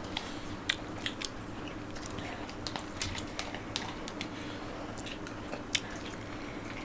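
Close-up chewing and mouth clicks of someone eating instant noodles, with scattered sharp little clicks and smacks over a steady low hum.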